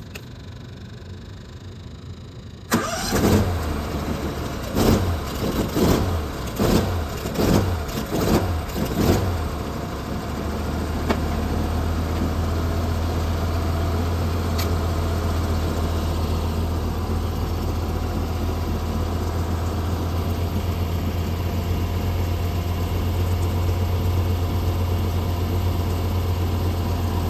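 An engine, most likely the carpet-cleaning truck-mount's engine, starts about three seconds in. It runs unevenly in pulses for several seconds, then settles into a steady low run.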